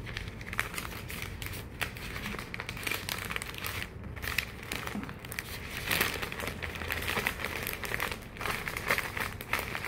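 Sheet of bouquet wrapping material crinkling and rustling irregularly as it is folded and handled around a bouquet.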